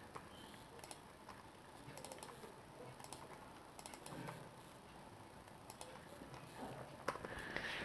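Faint, scattered clicks of a computer keyboard and mouse as text is selected, copied and pasted in a code editor.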